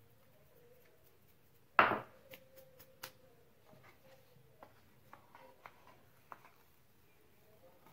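Kitchen handling sounds: one sharp knock about two seconds in, then a few light taps and clicks as a cornflour-dusted steel tray and a marshmallow mould are handled.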